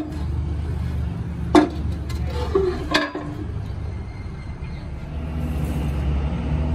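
Two sharp metal knocks, about a second and a half apart, over a steady low rumble.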